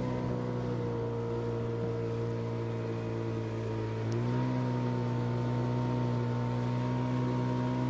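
Motor yacht's engine running steadily under way, its hum stepping up slightly in pitch and loudness about four seconds in.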